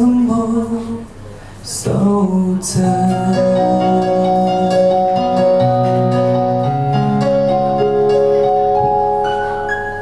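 A live Cantopop song: a man singing to electric keyboard accompaniment, with long held chords under the voice.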